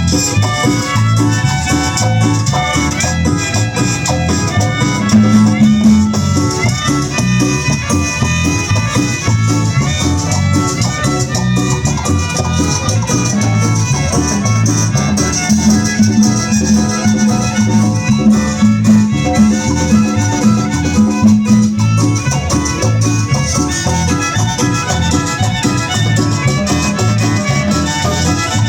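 Latin dance music with a steady beat.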